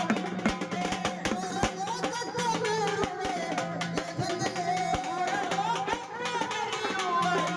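Music: a wavering melodic line over a steady low drone, with frequent drum strokes.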